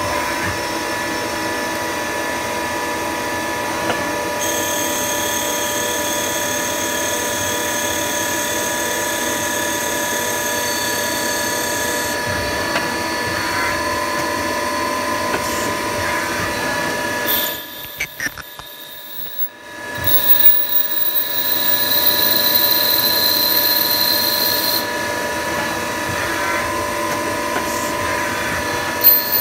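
Nakamura-Tome TMC-15 CNC turning centre running a machining cycle on brass bar stock: a steady mechanical whine with several constant tones. An extra high whine joins about four seconds in and stops around twelve seconds. About two-thirds of the way through the machine goes briefly quieter, then a high tone rises slightly for a few seconds before the steady running resumes.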